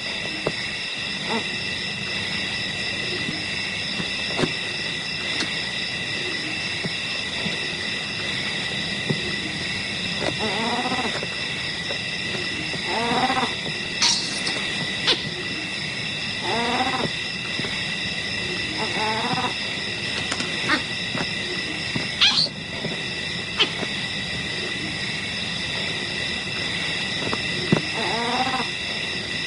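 A steady chorus of night insects, with a wild animal calling about five times, each call a pitched cry lasting about a second.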